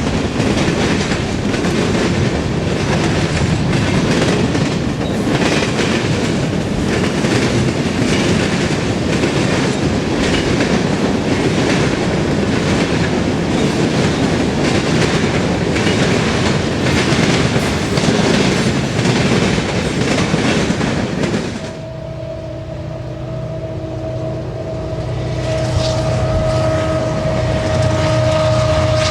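Freight train rolling past, with a dense rumble and the clickety-clack of wheels over rail joints. About three-quarters of the way through the sound cuts off abruptly to a steadier drone with a held whine that grows louder.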